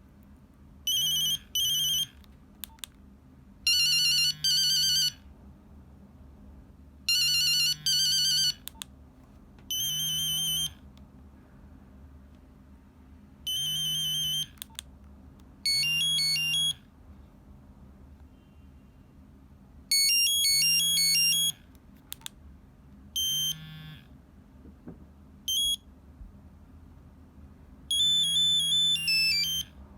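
Nokia 3395 ringtones played one after another through the phone's small speaker: about ten short snippets of beeping monophonic melody, each a second or so long and cut off, with short pauses between.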